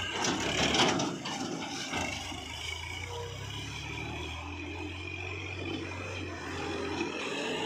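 Tractor engine running steadily as a low hum that fades out near the end, with a brief louder burst of noise in the first second.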